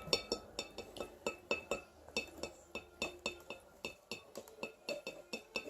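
Rapid light clinking of small hard objects, about four sharp taps a second, each with a brief high ringing.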